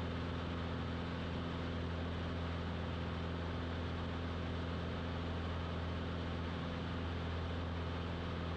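Grumman AA-5 single-engine light plane's engine and propeller droning steadily at climb power, one even low drone that holds its pitch throughout.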